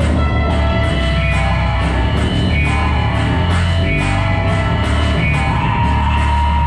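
Loud live rock band music with electric guitar over a heavy, steady low end and a regular beat.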